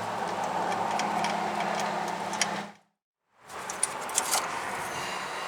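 A steady low hum with a hiss, which cuts off abruptly a little after halfway; after a brief dead silence, quieter background noise with a few sharp light clicks.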